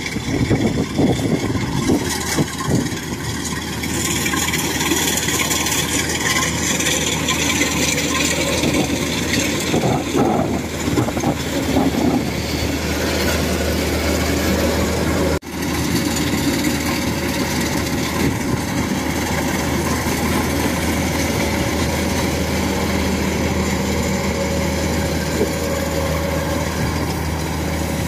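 Thai-made rice combine harvester running steadily as it cuts and threshes rice: a continuous engine and machinery drone, rougher and rattlier in the first part and smoother later, with a brief break about halfway through.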